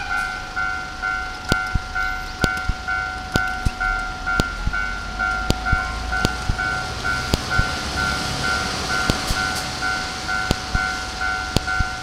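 Japanese level-crossing warning bell ringing, a repeating electronic two-tone clang at about two strikes a second. From about four seconds in, the low rumble of a DE10 diesel locomotive's engine rises under it as the locomotive pulls away.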